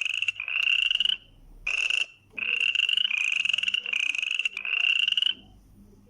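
Frog croaking: a run of about six short rasping, trilling calls in quick succession, with brief pauses after the first second and around two seconds, stopping about five seconds in.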